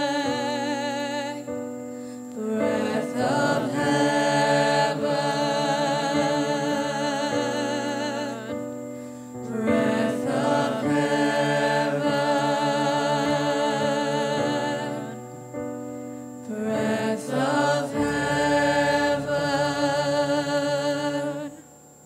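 Choir singing long held chords in three drawn-out phrases, with short breaks between them; the singing cuts off shortly before the end.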